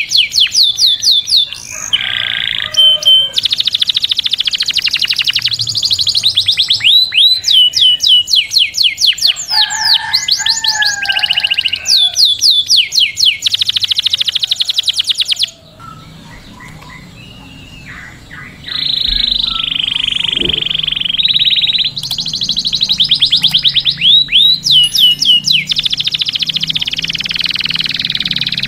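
Domestic canary singing: long runs of fast, repeated falling whistled notes, with a quieter gap of a few seconds past the middle followed by a steady held note before the fast runs start again.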